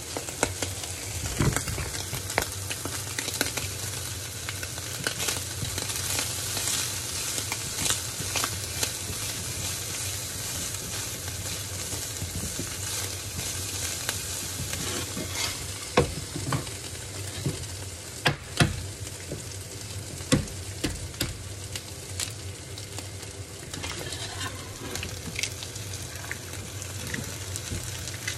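Chopped hot dog pieces sizzling in a nonstick skillet while being stirred with a spatula: a steady frying hiss with scattered clicks and knocks of the spatula against the pan, the loudest a few strokes between about 16 and 21 seconds in.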